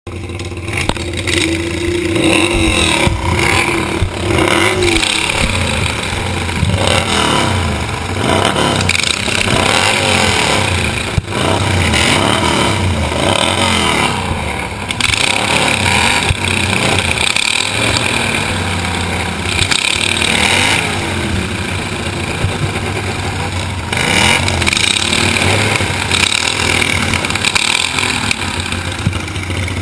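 Racing lawn mower engines running hard on a dirt track, revving up and down continuously throughout, with several engines overlapping.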